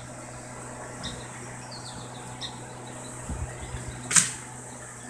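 Small birds chirping in short calls every second or so over a steady low hum. A few low thumps come past the middle, and a short, sharp noise about four seconds in is the loudest sound.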